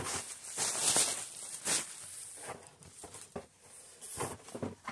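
Clear plastic packing material rustling and crinkling in irregular bursts as it is handled and pulled out of a cardboard box.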